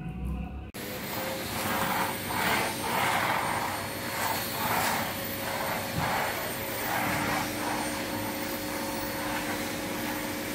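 Vacuum cleaner running, cutting in abruptly under a second in: a steady motor hum with a whine, under suction noise that swells and fades over and over as the floor nozzle is pushed back and forth across a marble floor.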